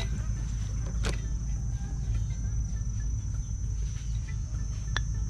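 Insects in a garden give a steady high-pitched whine over a low background rumble. Two faint clicks come about a second in and near the end as cooked rice is scooped from an aluminium pot into a small bowl.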